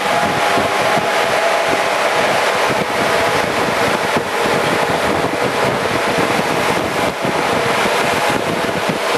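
Ship's engine-room machinery running: a loud, steady noise with a few faint steady tones in it.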